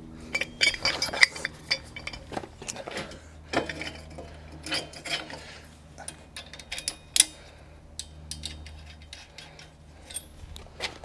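Steel bolts, nuts and a steel extension bar of a motorcycle dolly frame being handled and fitted by hand, with irregular small metallic clinks, taps and clicks.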